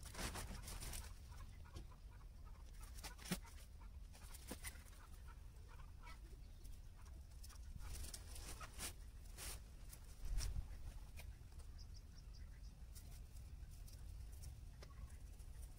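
Faint poultry-farm sounds: chickens clucking quietly, with scattered soft clicks and knocks, a sharper knock about three seconds in and a dull thump around ten seconds.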